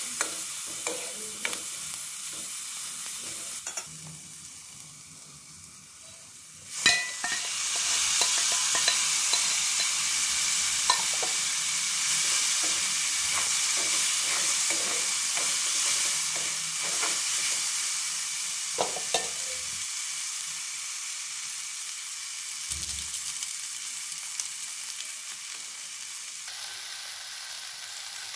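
Spatula stirring and scraping chopped onion frying in oil in a karai, with frequent short scrapes and taps against the pan. About seven seconds in there is a sharp hit and the sizzle grows much louder as softened noodles go into the hot oil, then it keeps sizzling as the noodles are tossed, easing off later on.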